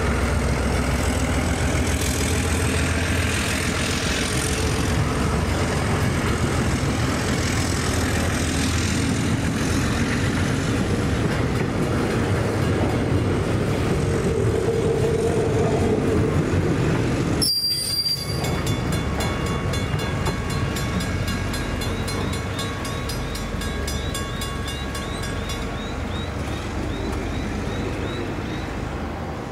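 Freight train of container and box wagons rolling over a level crossing, with steady wheel-on-rail noise. About halfway through it cuts off sharply, and a quieter stretch follows with a fast, even, repeated ringing from the crossing's warning bell as the boom gates lift.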